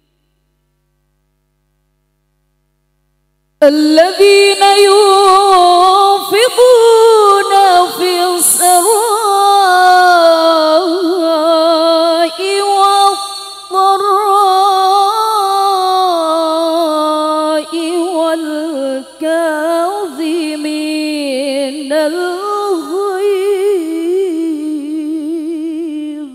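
A woman reciting the Quran unaccompanied in the melodic tilawah style, through a microphone and loudspeakers. She begins about three and a half seconds in and holds long notes with ornamented turns and vibrato.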